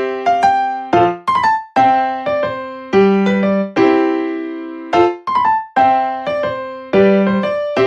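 Background music: a light piano or electric-piano tune, notes struck and left to ring in a repeating phrase.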